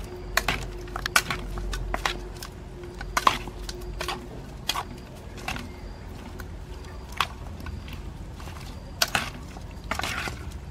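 A spoon stirring raw chicken wings and chili sauce in an aluminium basin: irregular clinks and knocks of the spoon against the metal bowl as the wings are tossed.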